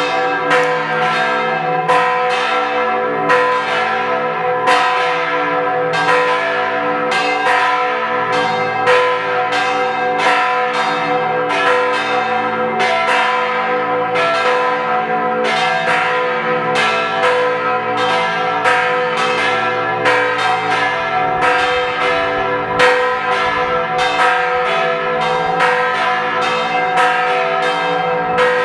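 Matera Cathedral's bell ringing the noon strokes: a quick, continuous run of strokes, well over one a second, each ring running into the next.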